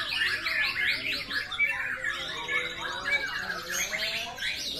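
White-rumped shama (murai batu) song: dense, rapid runs of high chirping and trilling notes, one phrase following another without a break.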